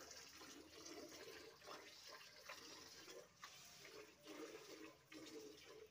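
Faint, irregular wet sloshing and slurping from a water buffalo feeding with its muzzle in a pail.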